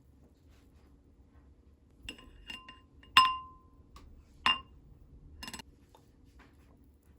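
A spoon clinking against a cup: a few light taps, then two sharp ringing clinks about a second apart, then a short rattle.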